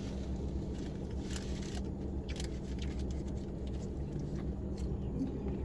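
Steady low hum of a car's cabin with the engine running, with faint rustling and light clicks scattered through it.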